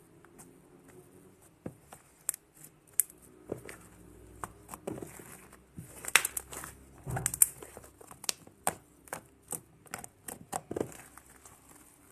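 Hands squeezing, stretching and poking fluffy slime made from glue, borax and shaving foam, making irregular sticky clicks, crackles and small pops. The clicks come thickest and loudest around six to eight seconds in.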